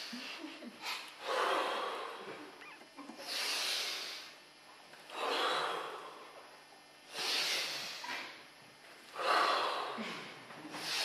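People breathing loudly and forcefully together in a breathing exercise: five deep, rushing breaths, about one every two seconds.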